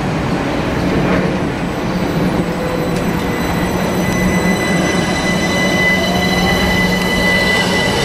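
Southern Class 377 Electrostar electric multiple unit moving slowly past along the platform, with a steady running rumble and hum. Thin high whining tones join in about five seconds in.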